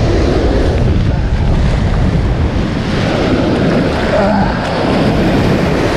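Ocean surf washing in over the shallows and swirling around the legs, with heavy wind rumble on the microphone.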